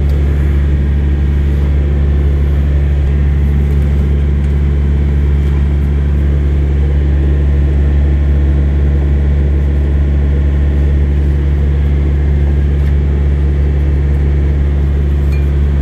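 Steady low hum of an idling diesel truck engine, not the one being worked on. A few faint clicks come through it.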